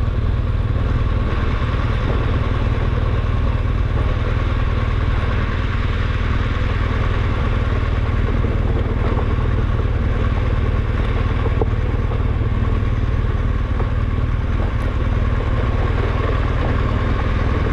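Adventure motorcycle engine running steadily while riding a rough dirt trail, under a heavy, constant low rumble.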